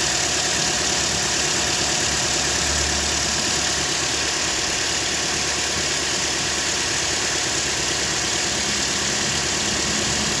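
Toyota Corolla E150 engine idling steadily and quietly, heard close at the engine bay. It has no knock or rattle from the alternator pulley, now that the seized, cracked overrunning clutch has been replaced with a new one.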